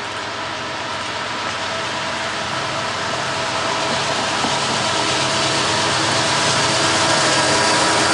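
Freight train led by two diesel locomotives approaching, the engine drone and wheel noise growing steadily louder.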